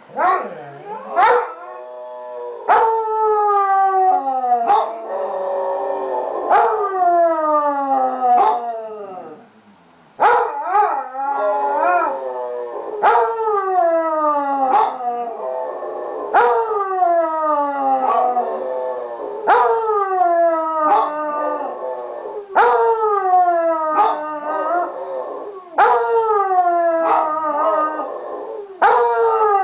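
Basset hounds howling in a long string of falling howls, a new one starting about every three seconds, with a short break about ten seconds in. This is the crying of dogs left alone for their absent owners.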